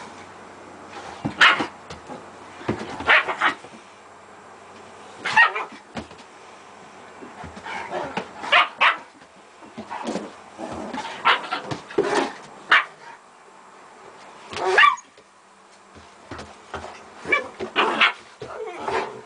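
German Shepherd dogs barking and yipping in play: short, sharp barks at irregular intervals, often one every second or so, some coming in quick pairs.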